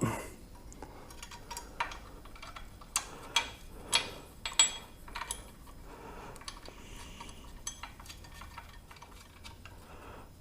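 Light metallic clinks and taps of bolts and tools being handled while metal parts are refitted to a motorcycle, with a cluster of sharper clicks a few seconds in.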